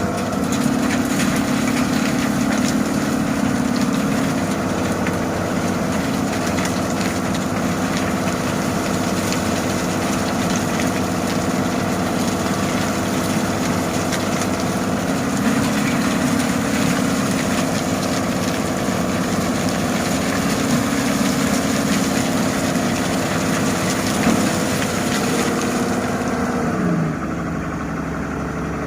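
Excavator's diesel engine working under load, its pitch rising and falling repeatedly as it digs and swings. About four-fifths of the way through it drops to a quieter, lower, steady idle.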